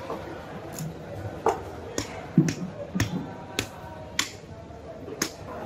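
Sharp clicks and taps from a knife cutting through a giant trevally's head on a wooden chopping block, about seven of them at irregular intervals of half a second to a second.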